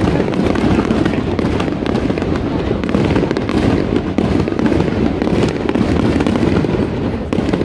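Aerial fireworks going off in a dense, continuous barrage: overlapping booms and crackling with no pause.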